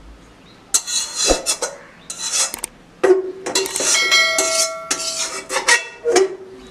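Metal dishes and utensils clattering and scraping in a series of knocks. One knock about three seconds in leaves a metal dish ringing for a couple of seconds.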